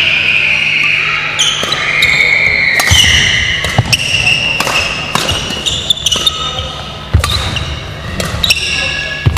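Badminton rally: sharp cracks of rackets striking the shuttlecock, about one a second, with short squeaks of court shoes on the wooden floor.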